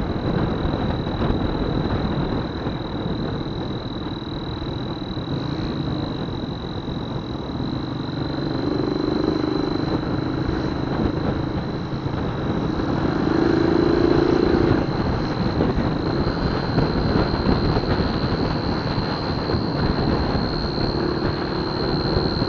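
Honda Verza 150 motorcycle engine running with a turbo whistle fitted to the exhaust, giving a steady high whistle over the engine's rumble. A lower hum swells in briefly three times.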